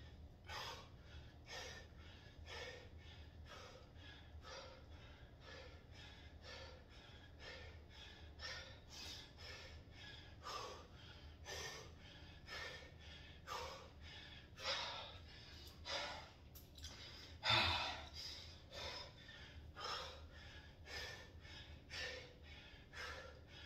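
A man breathing hard through a set of bodyweight exercise, in an even rhythm of sharp breaths about one a second. One breath is louder than the rest, about three quarters of the way through.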